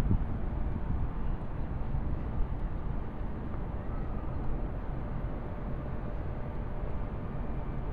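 Stock 1992 Toyota Supra Turbo's 7M-GTE turbocharged straight-six idling steadily, a low even rumble from the factory exhaust.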